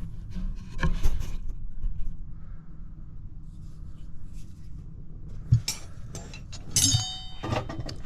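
Metal hand tools being handled and set on a table: rubbing and a few knocks, then a sharp clink of metal on metal near the end that rings briefly.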